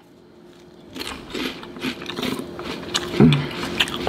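Crunchy chicken-flavoured Cheetos being bitten and chewed up close, a quick run of crisp crunches starting about a second in.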